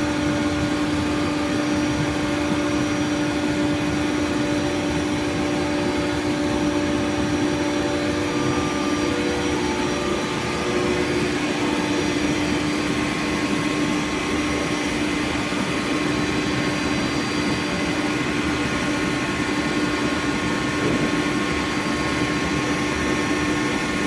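CNC milling machine running continuously: a steady high whine over a loud, even rushing noise.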